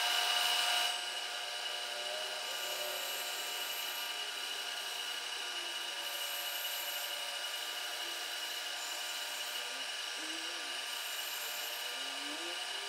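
Milling machine spindle running with an end mill cutting across a small metal casting: a steady whine made of many fixed tones over a rasping cutting noise. It drops a little in level about a second in, then holds steady.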